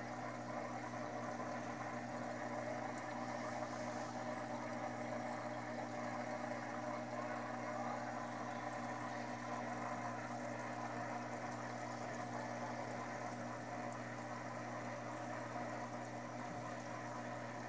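Steady low hum of an aquarium's submersible filter pump running, with no change in pitch or level.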